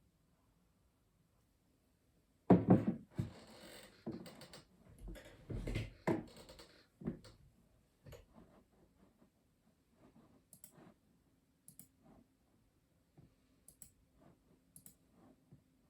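Custom mechanical keyboard keys clicking sparsely and irregularly rather than in steady typing. A louder, denser clatter of knocks and rustling comes between about two and seven seconds in.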